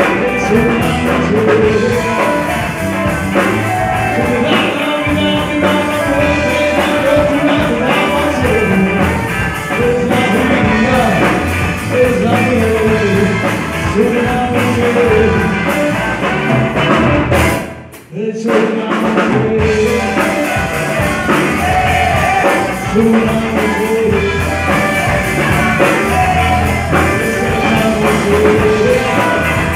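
Live rock band playing, with singing over electric guitars, bass, drum kit and saxophone. The sound drops out briefly about two-thirds of the way through, then the band carries on.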